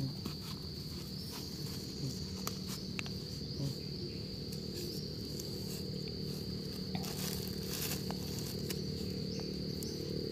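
Steady high-pitched insect drone, with scattered soft clicks and scrapes of a wooden stick digging into dry soil.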